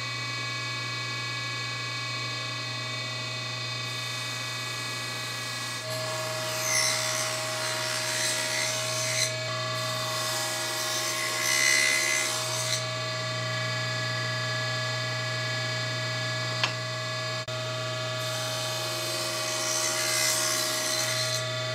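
Table saw running steadily with its motor hum, the blade cutting wood held upright in a tenon jig in three bursts of louder cutting noise. The bursts come about a third of the way in, near the middle and near the end.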